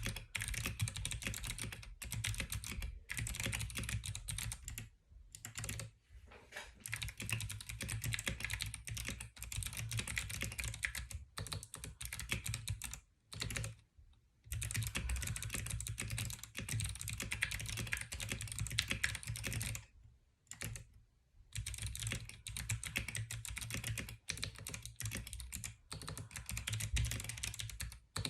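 Continuous typing on a Ducky One Two SF mechanical keyboard fitted with clicky Kailh Box White switches: fast runs of key clicks lasting several seconds, broken by a few short pauses.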